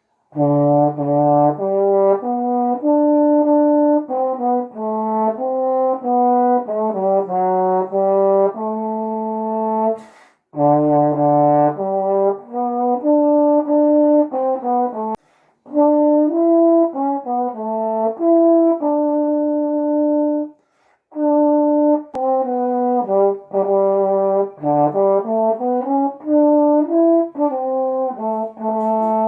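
Solo trombone playing a hymn melody, one sustained note after another in phrases, starting about half a second in, with short pauses for breath between phrases.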